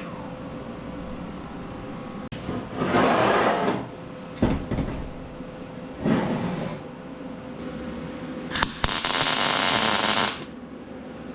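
Vulcan OmniPro 220 welder's arc crackling in short bursts as tack welds are laid on a steel shelf frame, the longest and loudest lasting about a second and a half near the end. Between the welds come knocks and clinks of the steel being handled, over a steady low hum.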